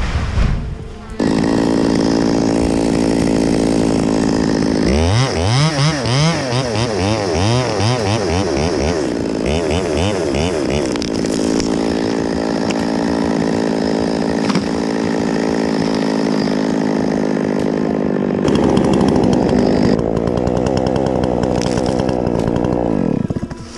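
Two-stroke chainsaw running, starting about a second in. From about five seconds its pitch swings up and down repeatedly for several seconds, then it holds a steady high pitch before dropping away near the end.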